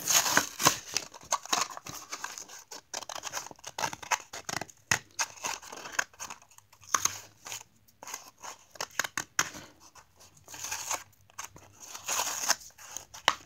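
Cardboard blister card of a toy die-cast car being torn open by hand: a stop-start run of ripping card and crinkling plastic blister.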